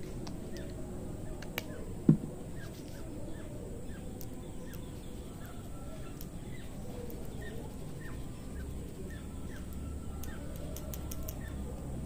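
Hair cracking: sharp little clicks and snaps as long hair is combed and strands are pulled and twisted, with a quick cluster of them near the end. Birds chirp repeatedly throughout, and a short low thud sounds about two seconds in.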